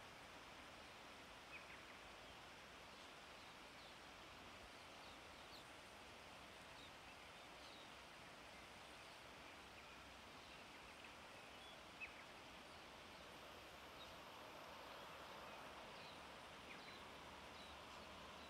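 Faint steady rush of a wide river flowing, with a few short, faint bird chirps scattered over it.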